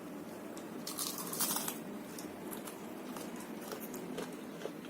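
A crunchy bite into a crispy fried mini samosa, with a burst of crackling about a second in, followed by close-up chewing with small crackles.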